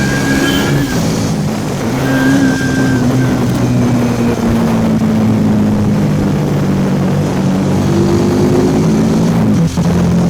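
Hero Xtreme 160R 4V's single-cylinder engine running under way as the bike is ridden, its pitch holding fairly steady and drifting slowly, with a brief dip near the end.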